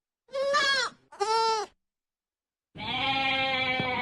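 Goats bleating: two short bleats in quick succession, each rising and falling in pitch, then a longer, steadier bleat starting near the end. The calls are separated by dead silence.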